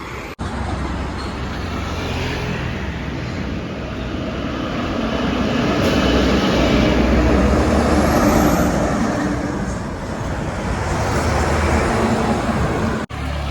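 Road traffic passing, with a heavy vehicle's engine rumble growing louder to a peak about eight seconds in and then easing off.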